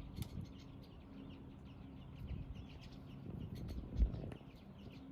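Small songbirds chirping over and over in short, high notes, over a low steady hum, with one dull thump about four seconds in.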